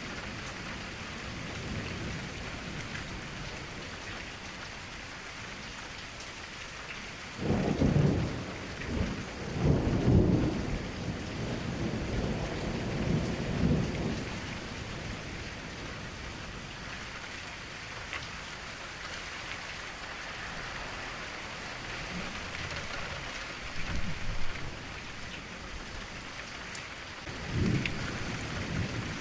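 Steady rain falling, with thunder rumbling: a long roll of rumbles about seven seconds in lasting several seconds, a short rumble later, and another starting near the end.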